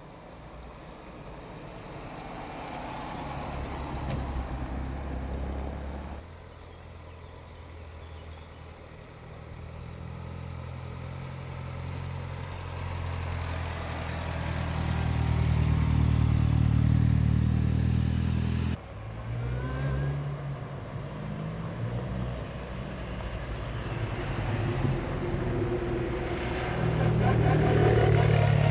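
Minis driving slowly past one after another: first a modern red MINI convertible, then a modern blue MINI Cooper S hatch, then a classic Mini with its A-series engine. Each engine note rises as the car draws near, and the sound cuts off abruptly twice, about six seconds in and again a few seconds before the end of the first twenty, where one car gives way to the next.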